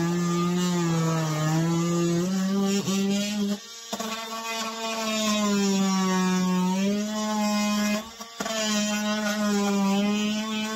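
Cordless oscillating multi-tool running as its blade cuts into a plastic battery case packed with spray foam: a steady buzz whose pitch sags and recovers as the blade loads up. It stops briefly twice, a little over a third of the way in and again about three-quarters through.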